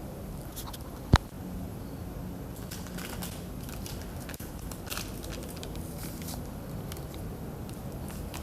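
Slime being handled, with scattered small crackling and popping clicks. There is one sharp, loud click about a second in.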